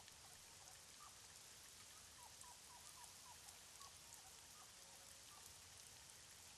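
Near silence: faint outdoor ambience, a steady hiss with faint short chirps from a small animal, several in quick succession about two to three and a half seconds in.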